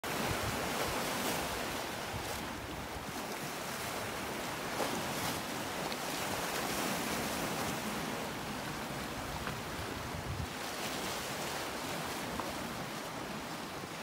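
Small sea waves breaking and washing over shoreline rocks: a steady surf hiss with faint brief splashes.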